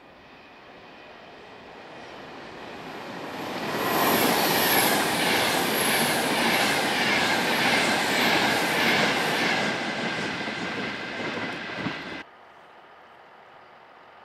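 Class 390 Pendolino electric train passing through at speed: a rush of wheels on rail that builds over about four seconds, stays loud with high squeals and a rhythmic clatter, then cuts off suddenly near the end, leaving only faint steady background noise.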